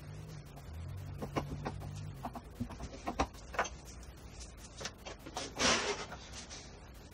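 Leatherworking bench sounds played back at four times speed: a quick run of clicks and knocks as a leather sheath piece and tools are handled at an arbor press, over a low hum in the first two seconds. A louder scraping slide comes just before six seconds, as the leather piece is laid down on the wooden bench.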